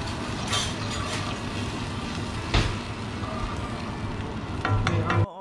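Sauce bubbling in a wok over a gas burner while a slotted wooden spatula stirs it, with a few knocks of the spatula against the pan, the sharpest a little past halfway, over a steady low hum.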